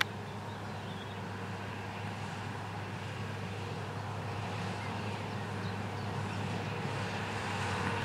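Case Puma 150 tractor's diesel engine running at a steady working note while it pulls a New Holland BR7050 round baler through a hay windrow, growing slowly louder as it comes closer.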